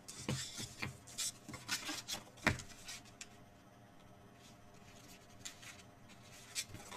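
Cardstock pieces being handled and rubbed together by hand as they are joined, giving short paper rustles and light taps. One sharper tap comes about two and a half seconds in, and then it goes quieter.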